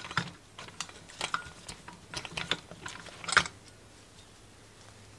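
Light clicks and taps of carburetor parts being handled as the float bowl is slid off a CV carburetor, with one louder knock about three seconds in, then a faint steady low hum.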